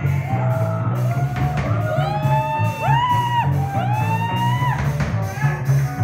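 A live rock band playing: electric bass and drum kit keep a steady groove, and from about two seconds in a voice sings several long notes that swoop up and are held.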